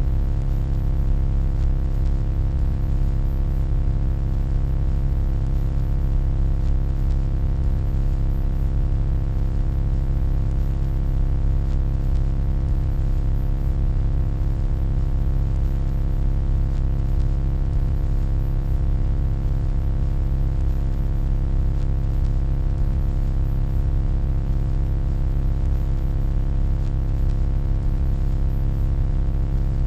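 Steady electronic hum: a deep rumbling drone with a stack of fainter steady tones above it, unchanging throughout.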